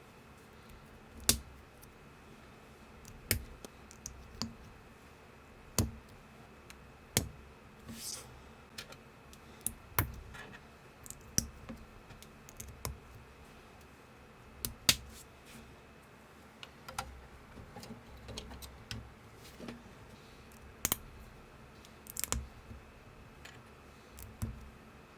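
LEGO-compatible plastic building bricks clicking and snapping together by hand: sharp clicks at irregular intervals of one to three seconds, with fainter ticks of handling in between.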